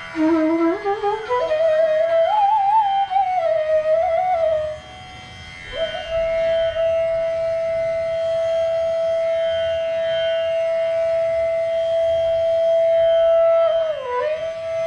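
Bansuri (bamboo transverse flute) playing a slow alap passage in raag Patdeep over a steady drone: a phrase sliding upward over the first few seconds, a short breath, then one long held note that dips briefly and returns near the end.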